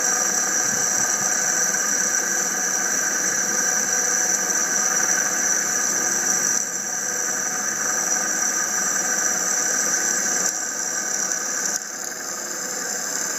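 Circa-1915 Canedy Otto bench drill press running on its quarter-horsepower AC motor, its bit drilling a small piece of metal under light feed pressure and giving off a steady high-pitched whine. The whine cuts off suddenly at the end as the bit breaks through the metal.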